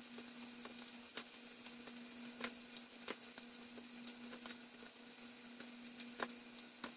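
Chicken thighs frying in olive oil in a pan, sizzling faintly with scattered small crackles. A faint steady hum runs underneath.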